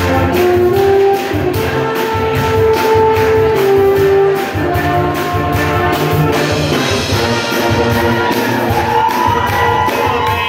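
A brass band plays live: tuba, trombones and trumpets hold sustained notes over a drum kit keeping a steady beat, in a rock medley arrangement for brass.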